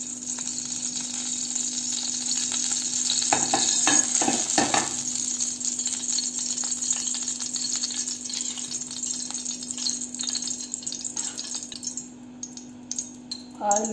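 Cooking oil sizzling in a frying pan on the stove: a steady frying hiss with a brief clatter about four seconds in, thinning about twelve seconds in to scattered crackles.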